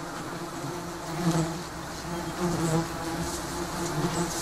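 Bees buzzing at flowers: a low, steady hum whose pitch wavers slightly and which swells a few times.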